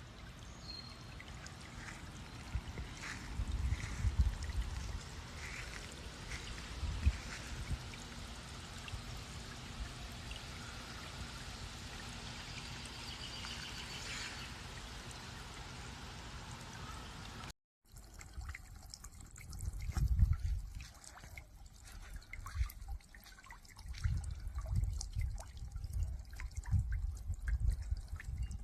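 Water trickling and splashing from a small solar-powered bird bath fountain, running steadily.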